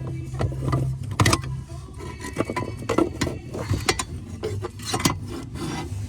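Irregular metallic clunks, knocks and rattles as a 1999 Chevrolet Corvette's unbolted clutch pedal assembly is worked and wrestled out from under the dashboard.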